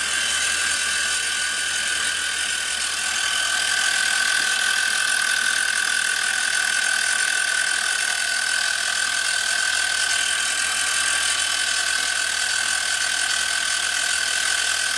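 PM-25MV benchtop milling machine running with its spindle turning but not yet cutting: a steady whine over an even hiss.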